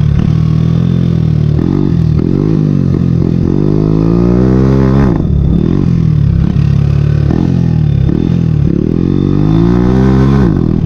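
Hero Honda motorcycle's single-cylinder four-stroke engine running through an aftermarket M4 exhaust with the dB killer removed, loud, revving up and down again and again as the bike is ridden. One longer climb in pitch tops out about five seconds in and then drops away.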